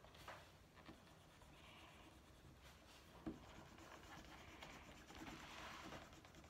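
Faint scratching of felt-tip markers stroking across coloring-book paper, coming and going as patches are colored in, with a single light tap a little over three seconds in.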